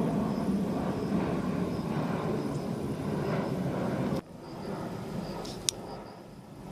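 Airliner flying toward the airport, a steady low rumble that drops off abruptly about four seconds in, leaving a fainter rumble with a sharp click.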